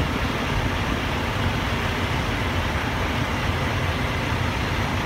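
Steady rumble of an idling truck engine under an even hiss, with no change throughout.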